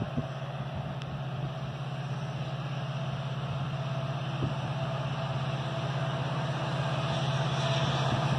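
Diesel locomotive engine approaching, a low steady drone that grows gradually louder.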